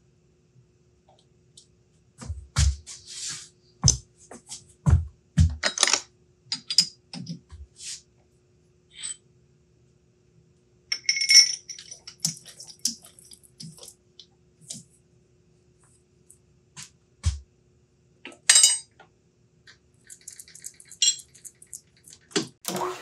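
Steel tools handled on a metal lathe: scattered metallic clinks, taps and knocks as a dial indicator is taken off the tool post and a chuck key is worked in the chuck, a few strikes ringing briefly, over a faint steady hum.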